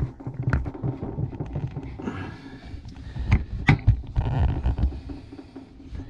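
Rustling and handling noise, with a few sharp knocks, as a power lead and its plug are handled against the back of a portable fridge freezer. The clearest two knocks come close together a little past the middle.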